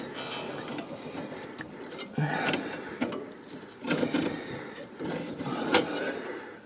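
Irregular metallic clicks, clunks and rattling of mower deck parts being handled as a new drive belt is worked onto the deck pulleys, with a few sharper knocks.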